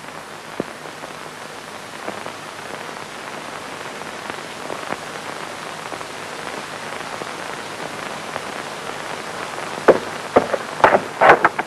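Steady hiss of an old film soundtrack, growing slowly louder. Near the end comes a burst of crackles and pops.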